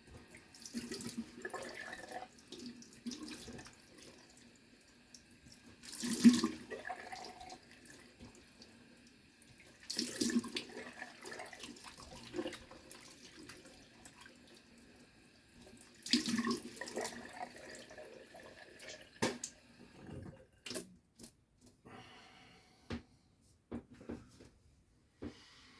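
Water running from a tap into a sink, with four bursts of splashing as hands rinse in the water. Near the end come a few short sharp knocks.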